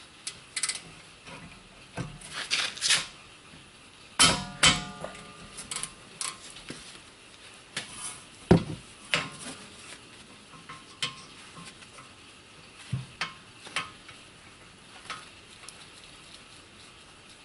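Metal clinks and clanks of hand tools and brake parts during removal of a car's rear brake caliper, at irregular intervals. Two loud ringing clanks come about four seconds in and a sharp knock about halfway through, with lighter ticks and clicks between.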